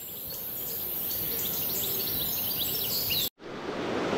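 Steady rushing noise of heavy rain and river water, with small birds chirping repeatedly over it. The sound cuts out abruptly for a moment about three seconds in, then the water noise returns.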